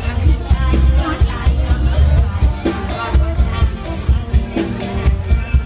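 Loud live Isan luk thung band music through the stage sound system, with a heavy pulsing bass beat and a singer's voice over it.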